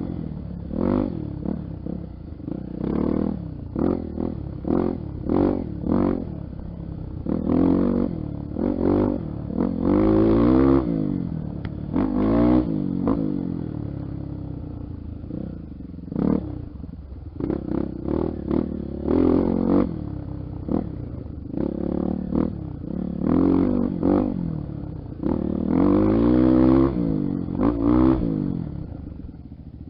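Honda XR 250 Tornado trail bike's single-cylinder four-stroke engine being ridden, revving up and dropping back over and over as the throttle is opened and closed, its pitch rising and falling every second or two.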